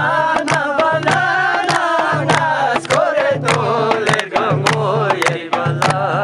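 Folk song sung with a wavering melody, kept in time by hand clapping at about two claps a second over a repeating low beat.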